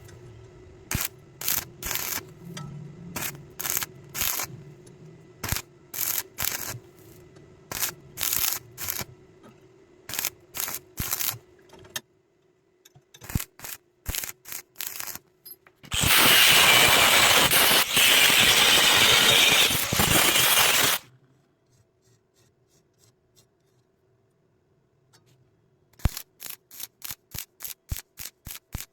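Metalwork on iron: short scraping or tapping strokes, about two a second, then a loud steady hiss lasting about five seconds midway, then quicker strokes starting near the end.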